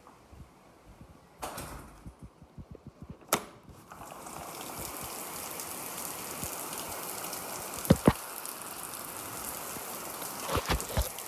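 A few clicks and knocks, then from about four seconds in a steady hiss of heavy rain. Two sharp knocks about eight seconds in are the loudest sounds.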